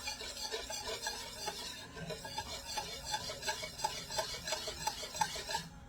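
A utensil stirring a liquid soy-sauce marinade in a bowl, scraping round in a steady rhythm of about three strokes a second.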